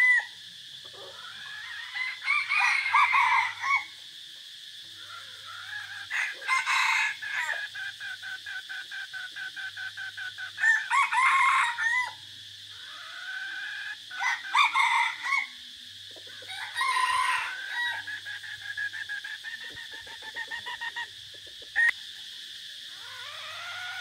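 Caged red junglefowl decoy roosters crowing in turn: about five short crows, spaced a few seconds apart, with a fast run of clucking between them.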